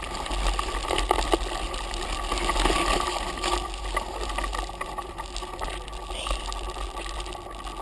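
Mountain bike ridden over rough, muddy trail: tyre noise and a steady run of small rattles and knocks from the bike, with a constant low rumble of wind on the helmet-camera microphone.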